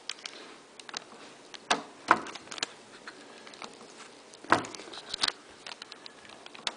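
A HyperX RAM stick being handled and pressed into a motherboard memory slot: a few sharp clicks and light taps spread over several seconds, the slot's retention clips snapping into place.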